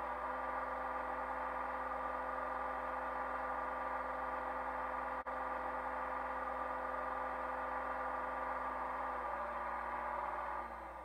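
HO scale Athearn Genesis mechanical reefer's sound decoder playing its refrigeration unit's diesel genset through an upgraded Soundtraxx Mega Bass speaker, running steadily as a hum of several held tones. Near the end the unit cycles off in its auto mode and the sound dies away.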